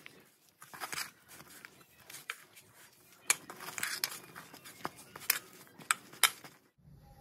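A hand mixing and squeezing flour into mashed potato in a metal bowl: irregular rustling and scraping, with a few sharp taps against the bowl.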